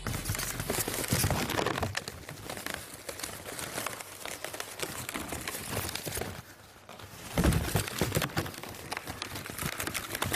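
Latex modelling balloons squeaking and rubbing against each other as they are twisted and handled into balloon roses: a busy string of short squeaks and crinkles, with a brief lull a little past halfway.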